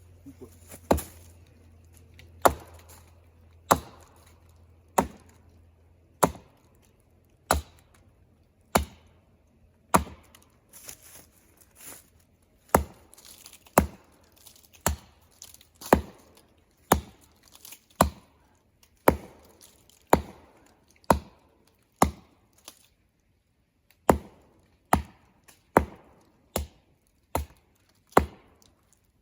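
Axe chopping into a tree trunk: sharp, evenly paced strokes at about one a second, with a brief pause late on.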